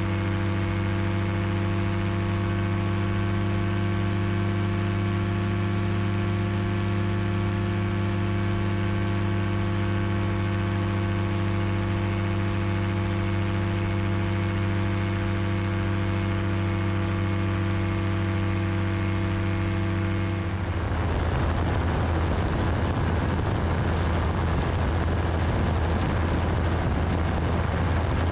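Single-seat FlightStar ultralight's engine and propeller droning steadily in level cruise, an even pitched hum. About two-thirds of the way through, the sound turns rougher and more rushing, with the low hum still under it.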